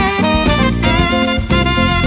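Background music: an upbeat swing-style jazz tune with saxophone and brass.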